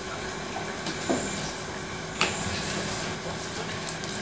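Steady hiss of room noise with a faint low hum, broken by two short knocks about one and two seconds in and a fainter click near the end.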